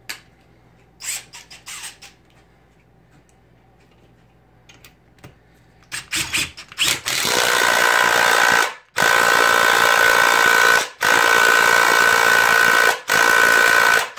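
Snap-on 18-volt 3/8-inch cordless impact wrench hammering a nut down as tight as it will go, in four runs of about two seconds each with short pauses between. A few light clicks and knocks come first, then short trigger blips about six seconds in before it hammers steadily.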